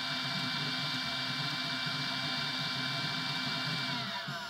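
FDM 3D printer running mid-print: a steady stepper-motor whine over hiss, with a busy, fluttering low hum from the moving axes. Near the end the whine glides down in pitch as the motion slows.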